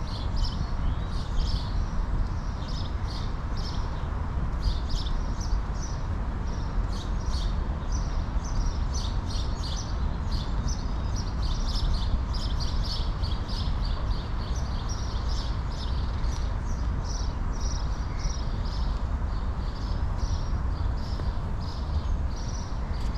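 Small songbirds chirping and singing in the trees, many short calls in quick succession, over a steady low rumble.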